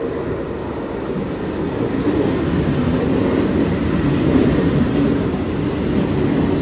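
Mumbai suburban local train running through the station: a steady rumble and rattle of wheels on rail that swells over the first couple of seconds and then holds.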